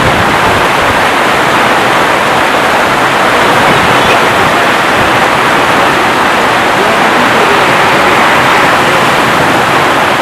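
Heavy thunderstorm rain pouring down in a steady, loud rush, with no thunder heard.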